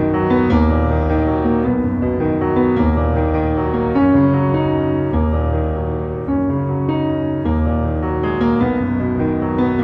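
Instrumental background music led by piano, with low sustained bass notes that change every couple of seconds.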